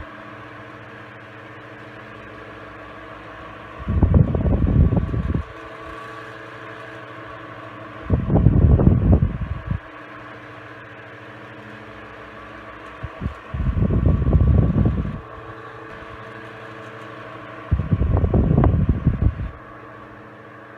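Vintage Knapp-Monarch Jack Frost 12-inch two-speed oscillating table fan running on high speed, a steady motor hum with blade whir. Four times, about every four and a half seconds, a loud gust of its airflow buffets the microphone as the oscillating head sweeps past.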